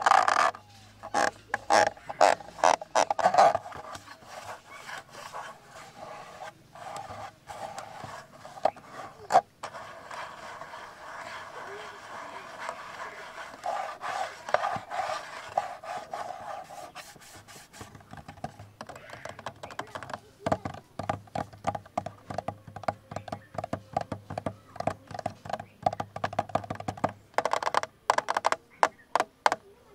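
Fingers tapping and scratching on a camera body: quick clusters of taps at the start and through the second half, with a steadier scratching stretch in the middle.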